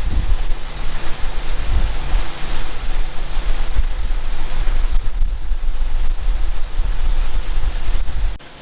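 Milwaukee cordless blower running steadily beside a running auger, blowing to hold the auger's flow in because the repaired auger spout is now too short, with wind buffeting the microphone. The noise cuts off sharply near the end.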